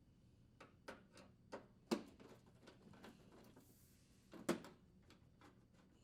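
Light clicks and taps of an oven door handle and screwdriver against the metal door panel as the handle's screws are fitted, with two sharper knocks about two seconds and four and a half seconds in.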